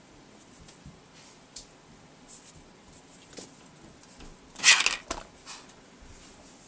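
Faint scattered rustles and small clicks of a five-week-old Sheltie puppy moving on a blanket as a hand plays with it, with one loud, brief scuffing rustle a little over two-thirds of the way through.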